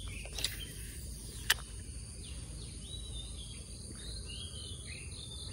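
Pondside ambience: a steady high drone of insects with birds chirping in short calls through the second half. A single sharp click about a second and a half in, with a fainter one about half a second in.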